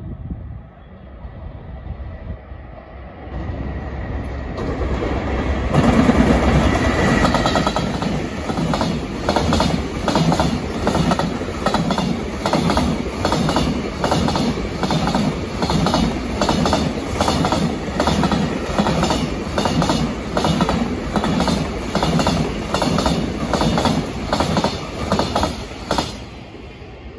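JR Freight container train passing at speed. It grows loud about six seconds in, then gives a fast, even clickety-clack of the wagon wheels over the rail joints for about twenty seconds, which cuts off as the last wagon goes by near the end.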